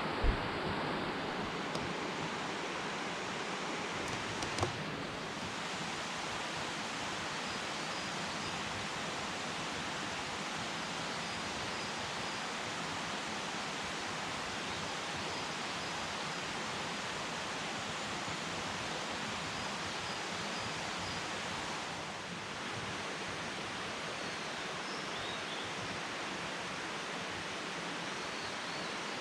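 A mountain stream flowing over rocks, a steady rushing murmur, with a sharp knock right at the start and another about five seconds in.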